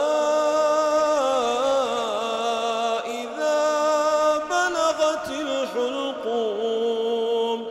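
A man reciting the Quran in a slow, melodic chant, drawing out long ornamented notes with a brief break about three seconds in.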